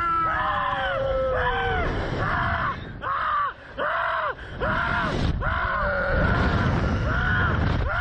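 Two riders on a Slingshot reverse-bungee ride screaming in a string of short, arching yells, about two a second. A low rushing noise runs underneath.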